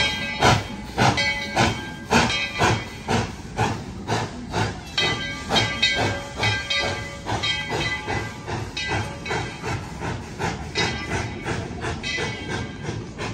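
ET&WNC No. 12, a 1917 Baldwin narrow-gauge 4-6-0 steam locomotive, chuffing as it pulls its passenger train away. The exhaust beats quicken from about two a second to about three and fade as it moves off.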